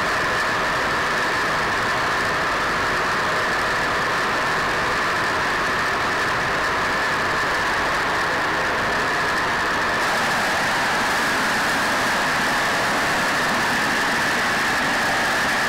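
Steady drone of a B-25 Mitchell's two Wright R-2600 radial engines in cruise flight, with rushing slipstream, heard from inside the plexiglass nose compartment. The sound gets a little brighter about ten seconds in.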